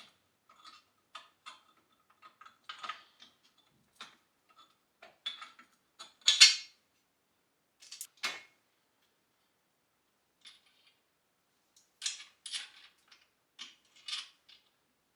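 Metal parts of a dumbbell rack clinking and clanking as they are handled and fitted together, in scattered knocks with the loudest clank about six seconds in and a cluster of knocks near the end.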